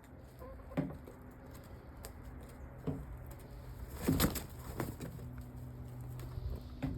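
Backyard chickens giving soft, low calls, with a few sudden rustles or scuffs. The biggest rustle comes about four seconds in.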